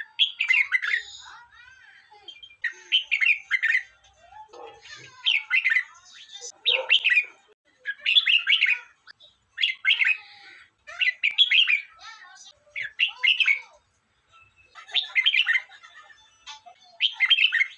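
Red-whiskered bulbul singing: short, quick warbling phrases, each about a second long, repeated about ten times with brief pauses between them.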